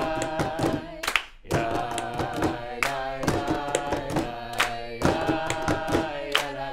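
A group of voices singing a Passover Maggid melody together, keeping time with hand claps; the singing drops away briefly about a second in.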